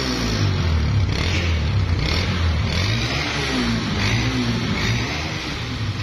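Honda CB 150F single-cylinder air-cooled engine running, revved up and down several times.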